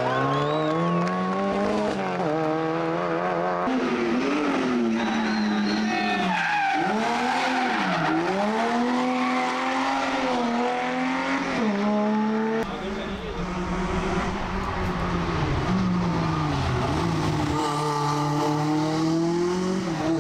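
Rally car engines revving hard, several cars in turn, the engine note rising and falling over and over with throttle and gear changes.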